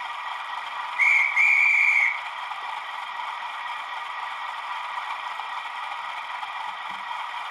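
Digital sound decoder in a Bachmann OO-gauge Class 37 model playing the diesel engine idling as a steady hum through the model's small speaker. About a second in the horn sounds twice at one pitch, a short blast and then a longer one.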